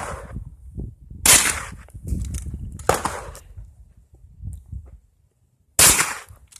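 A string of sharp gunshots at uneven intervals, about five in all, with a short pause before the last one.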